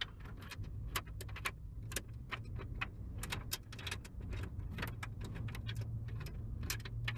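Irregular clicking and tapping of hand tools and plastic trim as screws are worked on a car's steering column cover, over a steady low hum.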